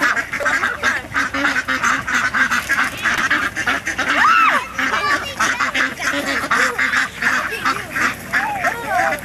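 A flock of domestic ducks quacking continuously in a dense chorus of rapid, overlapping calls, the sound of ducks crowding around for bread.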